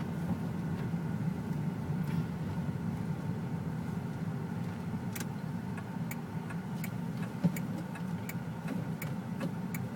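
Manual-transmission car's engine running at low revs, heard from inside the cabin as a steady low hum. From about halfway through, a regular clicking about twice a second joins it.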